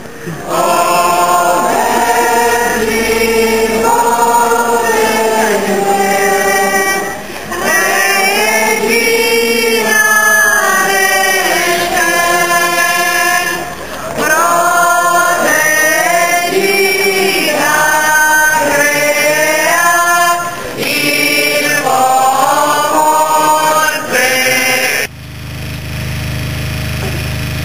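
A crowd of voices singing a hymn together, long held notes in phrases with short pauses between them. The singing breaks off suddenly near the end, leaving a steady low hum.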